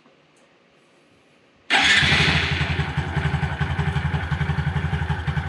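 Honda Super Cub C125's 125 cc air-cooled single-cylinder four-stroke engine starting on the electric starter about a second and a half in. It catches at once and settles into a steady idle with an even pulsing exhaust, run to circulate fresh oil just after an oil change.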